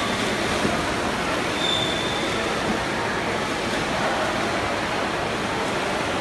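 Steady, echoing wash of noise in an indoor swimming pool during a race: several swimmers splashing through butterfly and backstroke.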